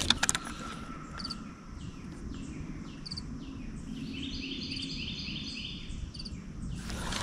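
A songbird singing outdoors: a run of repeated down-slurred whistled notes about twice a second, then a quicker series of higher notes. A few sharp clicks from handling a fishing reel come right at the start.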